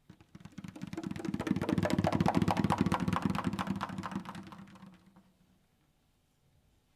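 Rapid hand-drum roll, a fast run of strokes that swells up and dies away over about five seconds.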